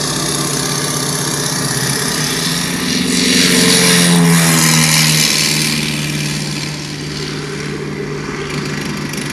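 Low, steady droning soundscape from a stage show's sound system, swelling about three seconds in with a rushing whoosh and a falling tone, then settling back to the drone.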